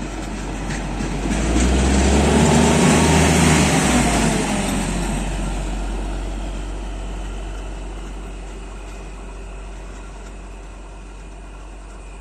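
An engine-driven rail vehicle passing close by: the engine sound builds to its loudest about two to four seconds in, drops slightly in pitch as it goes past, then fades slowly as it moves away.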